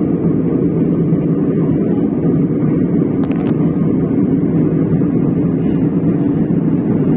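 Steady low noise inside an airliner cabin in cruise flight: engine and airflow noise.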